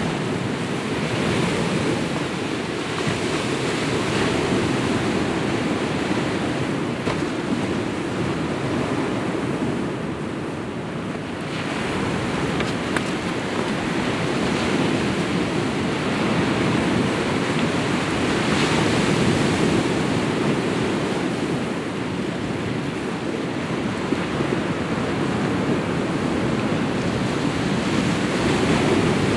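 Sea waves breaking and washing over a rocky shore: a continuous rush of surf that swells and ebbs, easing briefly about ten seconds in before building again.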